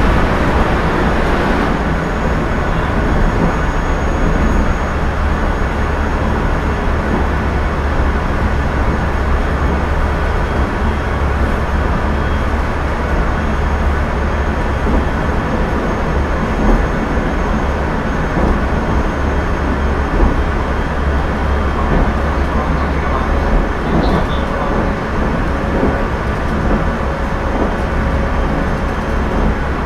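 Running sound inside a JR Central 373 series electric multiple unit's KuMoHa motor car: a steady rumble of wheels and running gear on the rails. A faint steady hum comes in about three-quarters of the way through.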